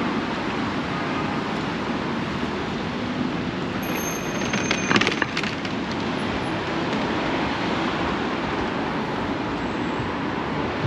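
A train running past, a steady rumble with a brief burst of clattering and thin high squeaks about five seconds in.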